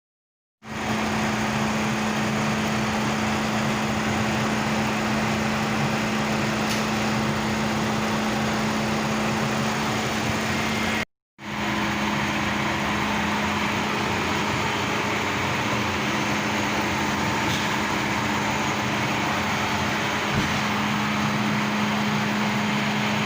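Mercedes-Benz SLK V6 engine running steadily with an even hum, after its worn spark plugs were replaced to cure a cylinder-2 misfire (code P0302). It is heard as two takes joined by a brief cut about eleven seconds in.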